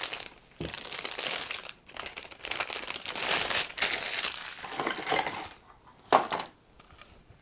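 Clear plastic packaging crinkling in irregular bursts for about five seconds as a power adapter and its cable are unwrapped and pulled out of the bag, then one short, louder rustle about six seconds in.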